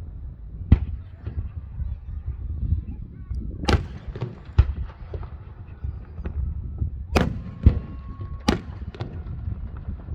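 Aerial fireworks shells bursting: about half a dozen loud sharp booms at uneven intervals, with smaller cracks between them and a low rumble underneath.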